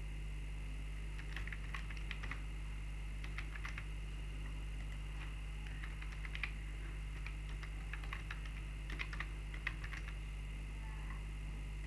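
Computer keyboard typing in short bursts of quick keystrokes with pauses between, over a steady low hum.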